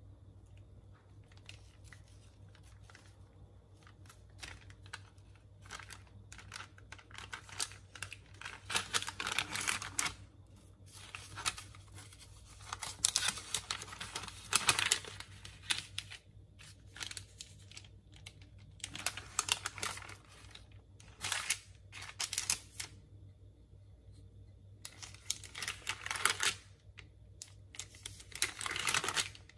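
Parchment paper rustling and crinkling in irregular bursts as it is handled and pressed on the counter.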